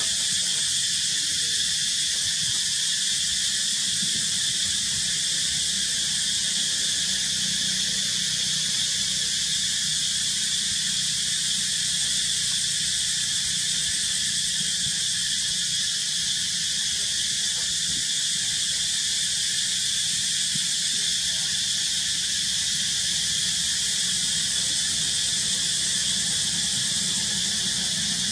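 Steady high-pitched insect drone that holds at an even level without a break.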